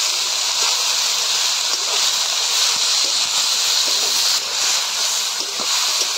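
Shredded cabbage sizzling steadily in hot oil in a steel kadai while it is stirred and tossed with a metal spatula, with faint scrapes of the spatula on the pan.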